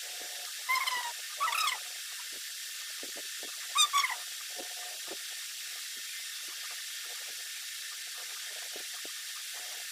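Three short, high-pitched cries from a small animal, about a second in, at one and a half seconds and near four seconds, over a steady background hiss.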